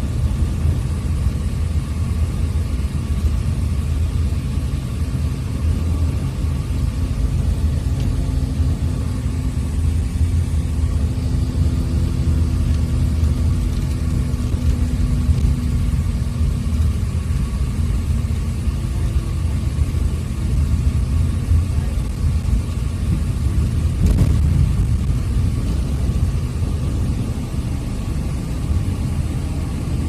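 Steady low rumble of a moving bus, engine and road noise heard from inside the cabin, with a faint engine hum rising in pitch around the middle.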